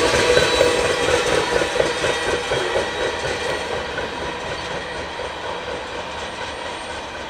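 Freight cars of a CN train rolling past on the rails, their noise slowly fading as the train moves away.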